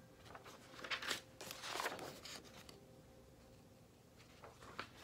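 Faint rustling of handheld paper poster-board signs being shuffled and swapped, in short bursts about one and two seconds in and again near the end.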